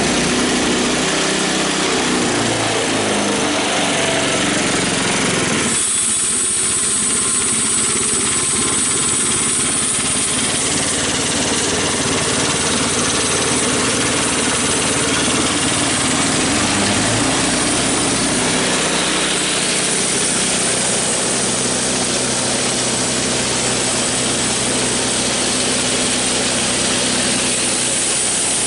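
Homemade band saw mill running on its 9.5 horsepower ex-snowblower engine, throttled up so its pitch climbs and wavers over the first few seconds. About six seconds in a steady high hiss suddenly joins the engine as the band blade engages and runs toward the poplar log.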